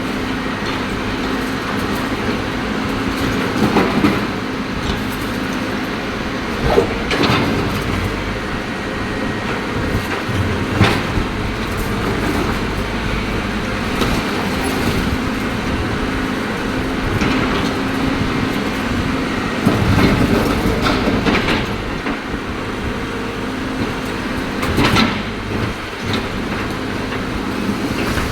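CAT excavator's diesel engine running steadily under load, with scattered loud clanks and crunches as the machine breaks up concrete.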